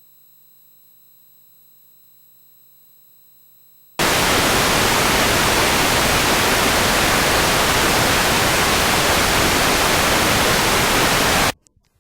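Broadcast static: near silence, then a loud, even white-noise hiss that starts abruptly about four seconds in and cuts off suddenly just before the end.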